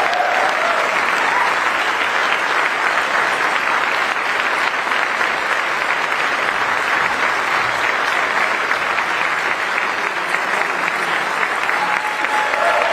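Conference audience applauding: dense, steady clapping from a large crowd.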